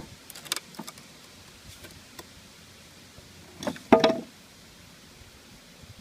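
A sharp click, a few light clicks, then a loud knocking clatter about four seconds in, from the bee package and hive gear being handled during the install.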